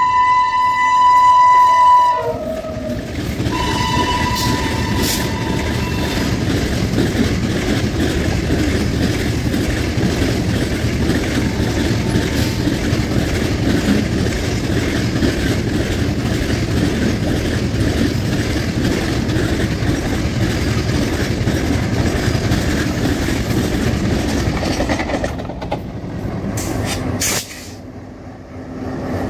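Electric freight locomotive's horn: a blast of about two seconds, then a second blast a couple of seconds later. It is followed by the steady noise and clatter of a long rake of covered goods wagons rolling past on the rails, which drops away near the end.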